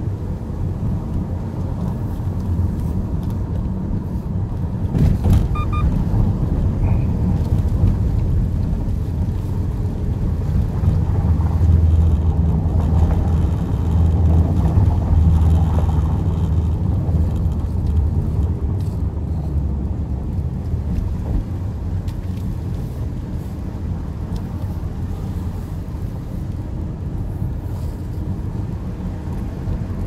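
Car engine and tyre noise heard from inside the cabin while driving slowly on a narrow paved road: a steady low rumble that swells in the middle, with a single knock about five seconds in.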